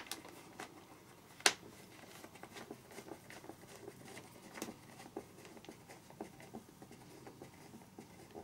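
Small screwdriver working a wing screw into a foam RC model airframe: quiet scraping and ticking, with one sharper click about a second and a half in. The screw is struggling to catch because the screw holes don't line up.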